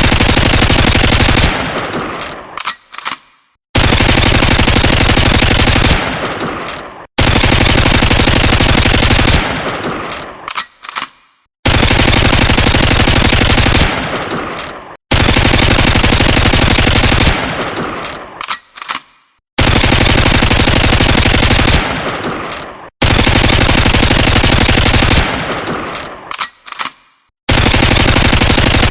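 Uzi submachine gun firing long fully automatic bursts, eight in all, each about two seconds of rapid shots fading into an echoing tail with a couple of short cracks, repeating about every four seconds.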